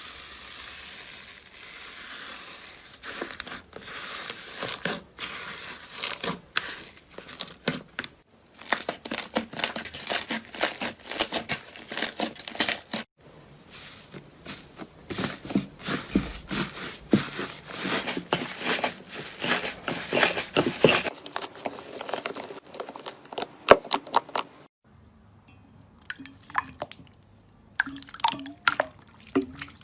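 Slime being squeezed and pressed by hand, making dense, rapid crackling and popping clicks. The crackling is preceded by a few seconds of steady hiss and gets quieter near the end.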